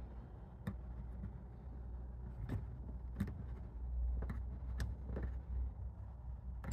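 Crossbar dent puller being tightened by hand: the threaded T-handle knob turned slowly, giving scattered faint clicks and creaks over a low steady rumble.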